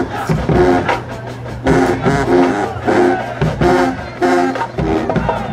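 A marching band's brass and drum line playing short, punched chords in a steady repeating rhythm, with drum hits under each chord.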